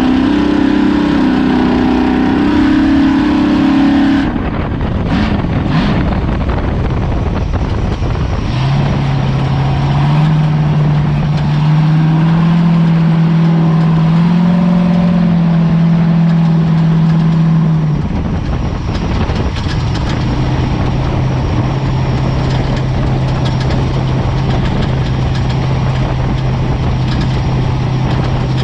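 Off-road race vehicle's engine running at a higher pitch, dropping off about four seconds in, then holding a steady lower note over a constant rush of noise. The note settles slightly lower for the last part.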